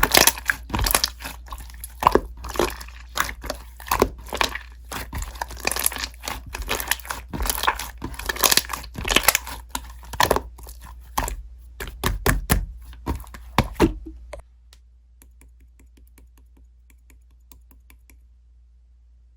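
Clay slime being squished and pressed by hand, a quick irregular run of crackling clicks and pops. It stops about three-quarters of the way through, leaving only a few faint clicks.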